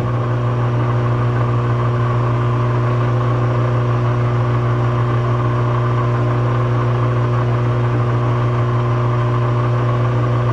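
Metal lathe running under power with a steady low hum, driving the carriage through a threading pass that cuts internal metric threads in a steel nut.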